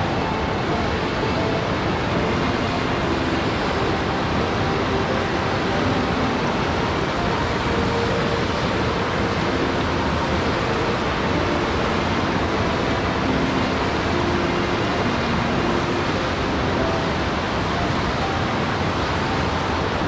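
Steady rushing water, with soft music playing faintly underneath.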